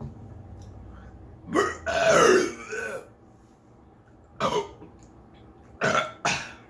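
Loud burping: one long drawn-out burp with a changing pitch about a second and a half in, then a short burp, then two more short burps in quick succession near the end.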